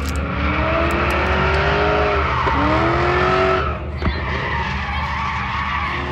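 A drifting car's tyres screeching in a long continuous slide, with its engine revving in two rising pulls during the first four seconds.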